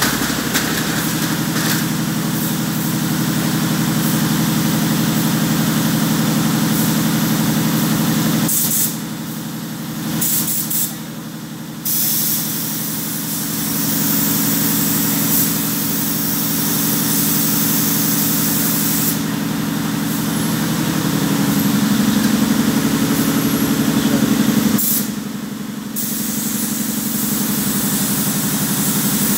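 Compressed-air paint spray gun hissing, over a steady motor hum. The spray hiss stops twice, from about 9 to 12 seconds in and again briefly near the end, while the hum runs on.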